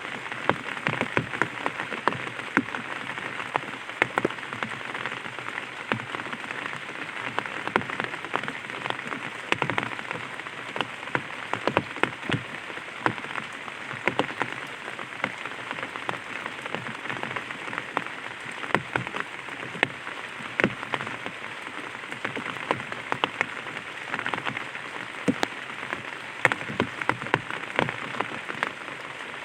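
Light rain falling on an umbrella canopy: a steady patter with many sharp, irregular drop ticks.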